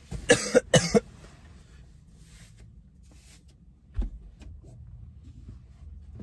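A man coughing three times in quick succession, then a low thump about four seconds in.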